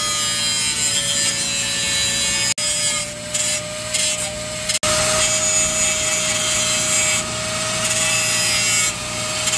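Angle grinder grinding the steel table of a Schramm 450WS drilling rig, with a steady motor whine over a harsh grinding noise. It breaks off briefly twice, about a third and halfway in. The table's worn surface is being welded up and ground back smooth.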